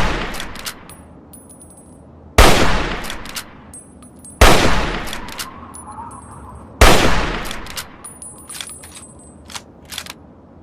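Hunting rifle firing three shots about two seconds apart, each sharp crack trailing off in a long echo, with the tail of an earlier shot fading at the start. Light metallic clicks and clinks sound between the shots and near the end.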